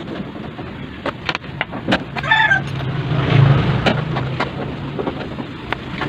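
A rooster crows briefly about two seconds in, over a run of sharp clicks and knocks and a low hum that lasts a few seconds.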